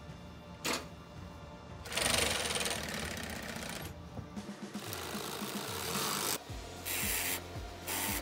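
Industrial sewing machine stitching through the edge of thick carpet, running in stop-start bursts: a short one about a second in, a longer run from about two to four seconds, then shorter runs near the end.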